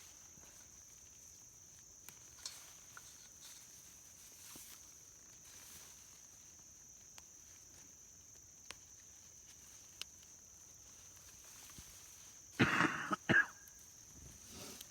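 Quiet soft digging in soil with scattered faint ticks under a steady high-pitched drone; near the end a person coughs twice, the loudest sound.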